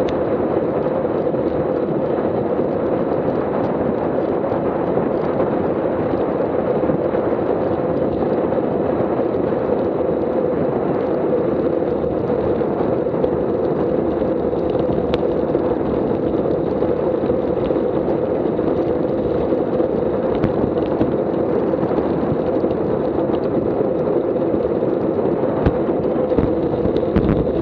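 Steady rush of wind buffeting an action camera's microphone, mixed with tyre and road noise from a road bike riding at around 20 to 26 mph. There are a couple of low thumps near the end.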